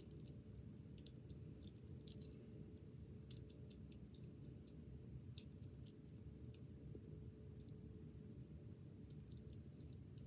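Rubik's Cube being twisted by hand: quick, irregular plastic clicks as its layers turn, a few of them louder, over a faint low hum.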